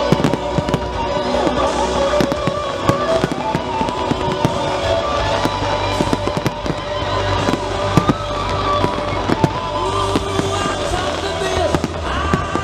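Display fireworks: aerial shells and comets bursting with many sharp bangs and crackles in quick succession, with music playing alongside.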